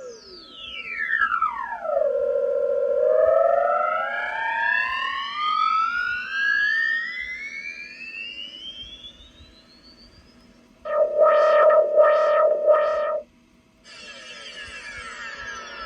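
Electronic sci-fi and VFO wind-up style sound effects from a CB radio key-up sound module. A tone sweeps quickly down and then winds slowly back up over several seconds. About eleven seconds in comes a short, loud warbling burst of three pulses, and near the end another tone slides down in pitch.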